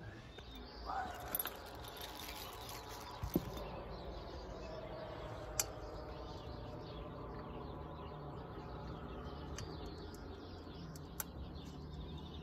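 Quiet outdoor ambience with faint birds chirping, and a few short clicks from hands handling a rooftop TV antenna and its cable.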